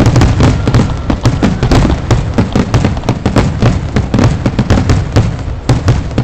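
Consumer aerial fireworks in their finale: many shells bursting in quick succession, sharp overlapping bangs and crackle, stopping suddenly at the very end.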